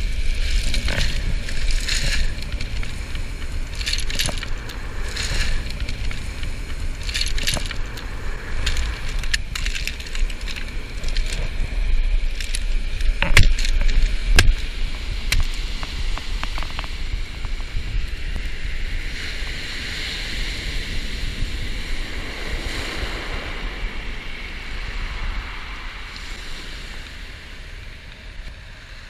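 Steady low rumble of wind and surf on the microphone, with scattered clicks and clatters of beach pebbles and handling as a kahawai is picked up off the stones; two sharper clacks come about halfway through. Softer rustling in the later part as the fish is wrapped in paper.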